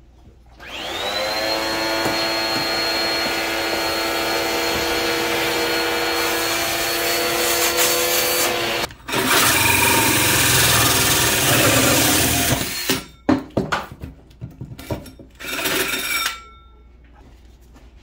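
A handheld vacuum spins up and runs steadily for about eight seconds, then stops. A cordless drill with a hole saw then cuts into the laminate tabletop with a louder, rougher sound for about four seconds, followed by several short stop-start bursts of the drill.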